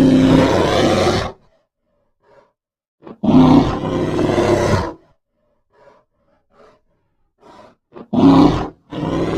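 Monster roar sound effects for a grootslang. A deep roar lasts just over a second, another about three seconds in runs nearly two seconds, and two shorter roars come near the end. Faint short growls are heard in the gaps between them.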